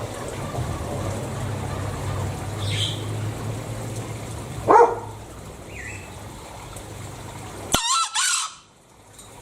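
Green junglefowl crowing: a loud rising call about halfway through, then a shrill, high crow near the end. After the crow the sound cuts off abruptly.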